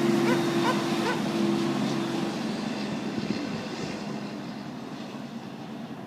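A motor vehicle's engine humming steadily, then fading away over the first few seconds, with a few short rising squeaks near the start.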